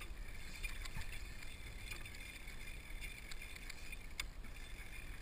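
Small waves lapping and splashing against a kayak hull, with a couple of faint clicks.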